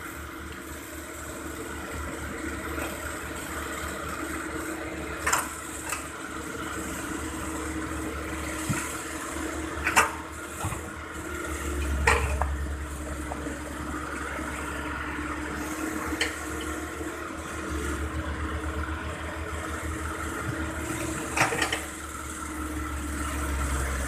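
Excavator diesel engine running steadily, its low rumble rising at times as it works, with several sharp metallic clanks scattered through.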